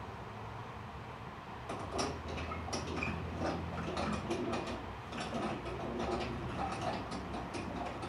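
Rope running through the pulleys of a home-built canoe hoist as the canoe is hauled up: irregular creaks, squeaks and clicks, starting about two seconds in.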